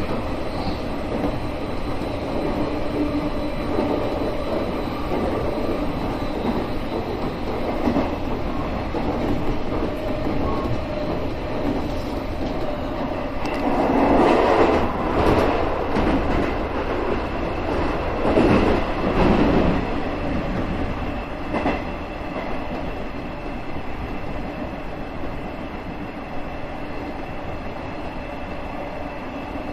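JR West 201 series electric train running, heard from inside the driver's cab: a steady rumble and clatter of wheels on rails. It grows louder for a few seconds about halfway through, again a little later, and eases toward the end.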